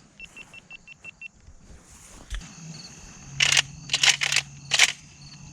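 A quick run of about eight short electronic beeps, then four loud short rustles close to the microphone over a steady low hum.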